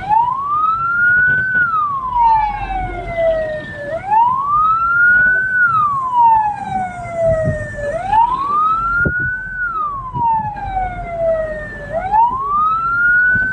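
Hearse siren wailing, each cycle rising quickly and then falling slowly, about once every four seconds, over the low rumble of a moving vehicle.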